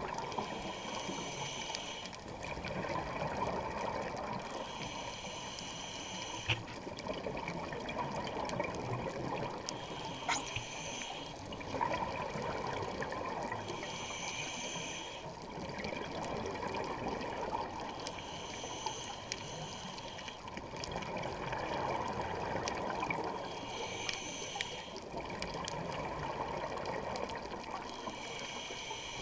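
Scuba regulator breathing heard underwater: a breath about every four seconds, each with a brief hiss, over a steady rush of exhaled bubbles.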